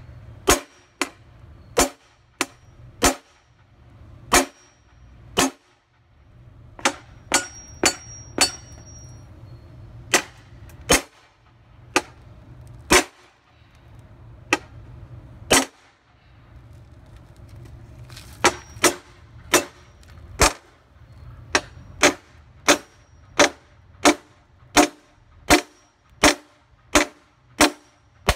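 A steel hammer striking a tempered, slumped mirror-glass sheet over and over, each blow a sharp ringing clack. The blows come irregularly at first, then settle into a steady run of about two a second in the second half. The tempered glass holds against the blows.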